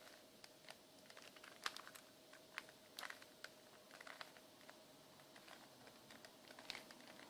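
Faint, irregular clicks and clacks of a plastic 3x3 Rubik's cube as its layers are turned by hand, over a faint steady hum.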